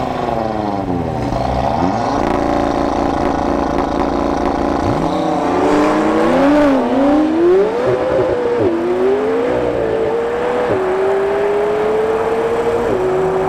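McLaren 720S twin-turbo V8 revving at the line and holding steady revs, then launching hard. The pitch climbs through the gears and drops sharply at each of three upshifts, about two seconds apart.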